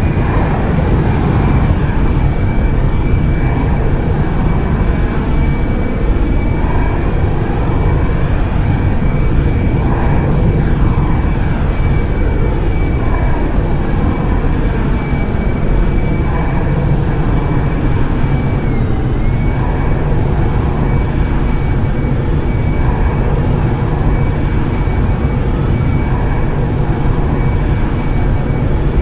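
Jet aircraft engine noise: a steady, loud roar with a high turbine whine on top, which dips briefly in pitch and recovers about two-thirds of the way through.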